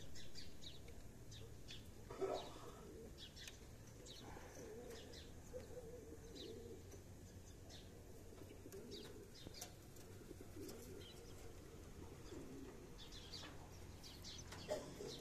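Birds calling: scattered short high chirps, with a low cooing through the middle. There is a brief louder sound about two seconds in and again near the end.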